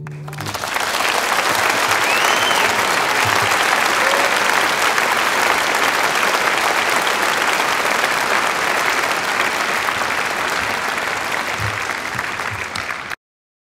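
Concert hall audience applauding steadily after a song ends, a dense even clapping from a large crowd. The applause cuts off abruptly into dead silence near the end, where the recording stops.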